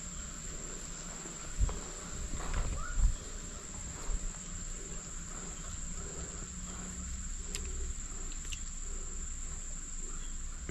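Steady, high-pitched drone of insects, with a few brief knocks about one and a half and three seconds in.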